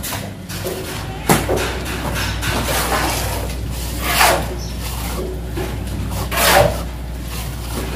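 Steel shovel scraping and scooping through wet cement mix on a concrete floor, one long scrape about every two seconds, with a sharp knock about a second in and a steady low hum underneath.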